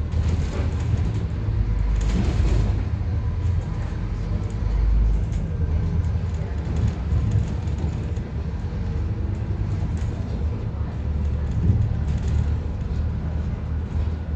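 Scania N230UD double-decker bus engine running under load as the bus drives along, heard from inside the passenger cabin: a continuous deep engine thrash.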